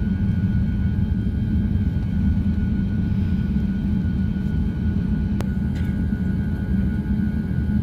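Cabin noise of an Airbus A350-900 with its Rolls-Royce Trent XWB engines running: a steady, loud low rumble with a faint steady whine above it. There is one sharp click about five and a half seconds in.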